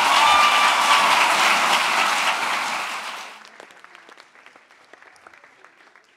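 Theatre audience applauding, dense at first, then dying down about three seconds in to a few scattered claps.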